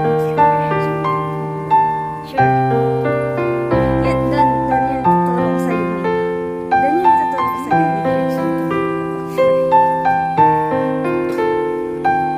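Background piano music: gentle notes struck one after another over sustained bass notes.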